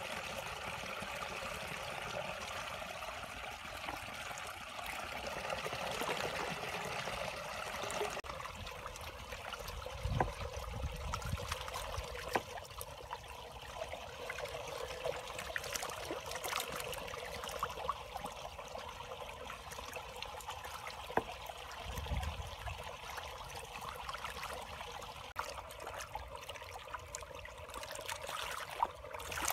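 Shallow water trickling and running steadily along a narrow muddy ditch, with a couple of dull low thumps about a third and two-thirds of the way through.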